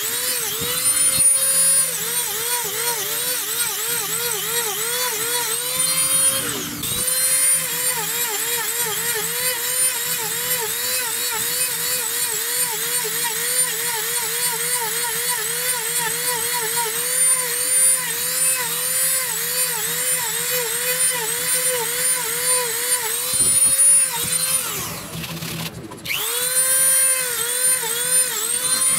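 Rotary tool spinning a concave eye cutter into wood, its motor whine dipping in pitch about twice a second as the cutter is pressed in to cut each ring. It eases off briefly about seven seconds in and again near twenty-five seconds.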